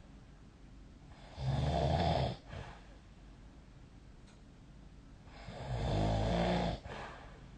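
A sleeping person snoring: two snores about four seconds apart, the second a little longer.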